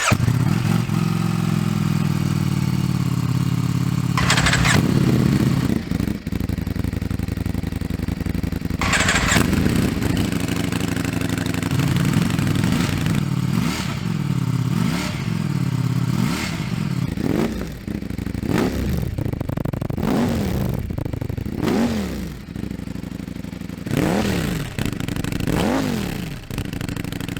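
Ducati Streetfighter V4 S's V4 engine starting and settling into a steady idle, then revved: two single revs, then a run of quick throttle blips, each rising and falling in pitch, about one a second.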